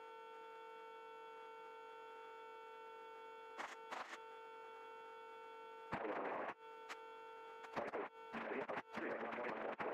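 Faint steady electrical hum with evenly spaced overtones on the helicopter's radio and intercom audio feed. Two brief clicks come around four seconds in, and short bursts of static follow from about six seconds in.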